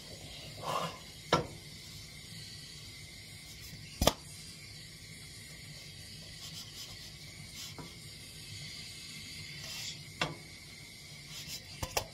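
A non-stick frying pan being lifted and shaken over a gas stove while a pancake cooks: a few sharp knocks of the pan over a steady hiss.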